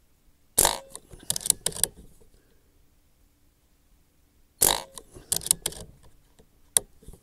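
Two shots from a Barra 1100Z .177 PCP air rifle, about four seconds apart. Each shot is followed by a few quick metallic clicks of the action being cycled to chamber the next pellet from the magazine. There is one more sharp click near the end.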